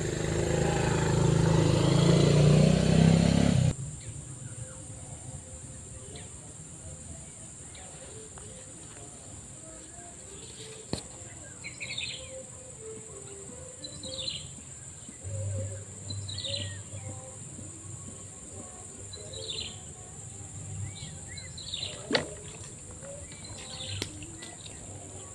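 A loud low rumble for the first few seconds cuts off abruptly. It leaves quiet outdoor ambience: a steady high hiss, and a bird repeating a short falling chirp every two to three seconds.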